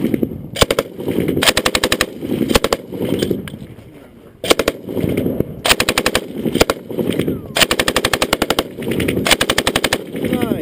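PKM belt-fed 7.62×54mmR machine gun firing a series of short bursts of rapid shots, with a pause of over a second partway through.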